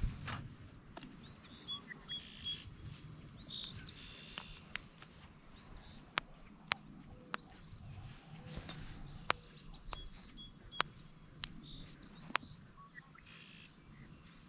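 Birds singing, with repeated high trills and whistled notes, over a low steady outdoor background. About eight sharp clicks come every second or so through the middle of it.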